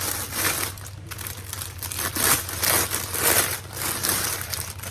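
Plastic packaging bag crinkling and rustling in irregular bursts as it is handled and opened to take out a piece of clothing.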